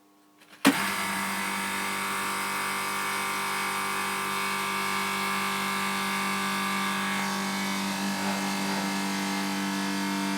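Bristol refrigeration compressor switching on with a sharp click about half a second in, then running with a steady hum. It is a test start on a newly fitted relay and start capacitor.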